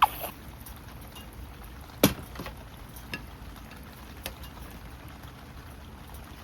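A few sharp taps and knocks over a steady low background hiss: two loud ones, at the start and about two seconds in, then three or four fainter ticks.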